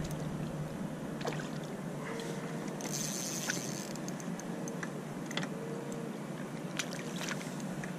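Steady water and wind noise around a float tube, with a handful of short splashes from a hooked trout thrashing at the surface near the end of the fight.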